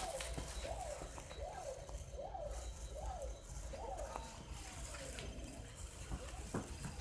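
A repeating chirping tone, each chirp rising then falling in pitch, about one every two-thirds of a second, fading after about four and a half seconds. A couple of soft knocks near the end.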